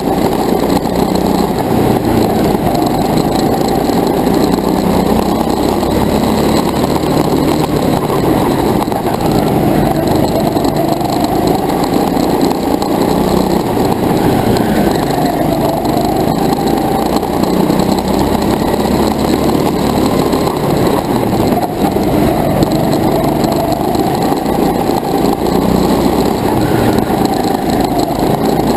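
Go-kart running hard, heard from on the kart, its motor pitch rising and falling every few seconds as it accelerates out of corners and slows into them.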